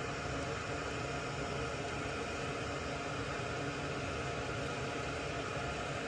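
Steady, unchanging hiss and low hum of continuous background noise, with no distinct clicks or knocks.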